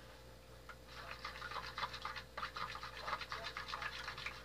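A metal spoon stirring and scraping in a plastic bowl of orange-juice and honey glaze: a quick, dense run of scratchy scrapes that starts about a second in.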